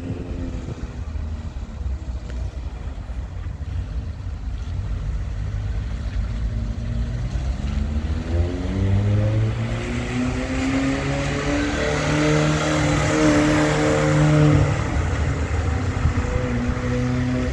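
A historic car's engine accelerating, its pitch rising and then holding, with a drop in pitch at a gear change about three seconds before the end, over a steady low rumble.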